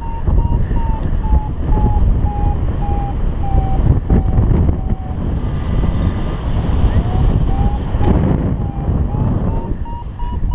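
Wind rushing over the microphone in paragliding flight, with a paraglider's variometer beeping in short repeated tones, about three a second. The beeps sink in pitch, drop out for a couple of seconds midway, then return with an upward glide and climb higher near the end. This is the vario's climb tone, which tracks how fast the glider is rising in lift.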